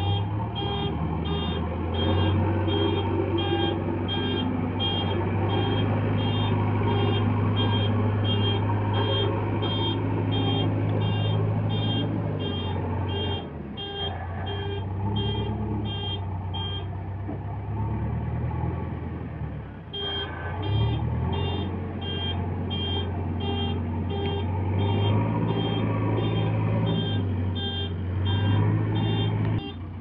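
JCB 3DX backhoe loader's diesel engine running, with its reversing alarm beeping about twice a second; the beeping stops for a few seconds in the middle, then starts again.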